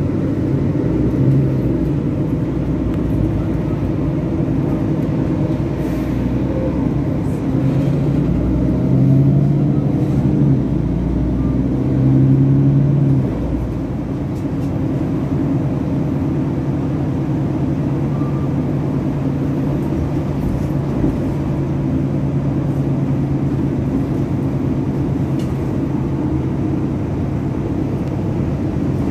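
City bus engine and road noise heard from inside the cabin while driving, a steady low drone. The engine note climbs and grows louder for a few seconds about a third of the way in, then drops back to an even run.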